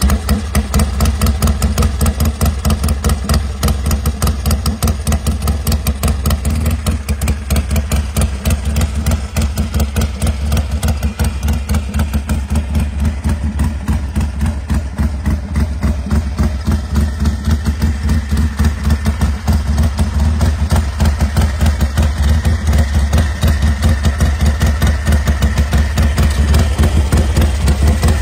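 1974 Laverda 750 SFC's air-cooled parallel-twin engine idling steadily just after being started, with an even, fast exhaust pulse.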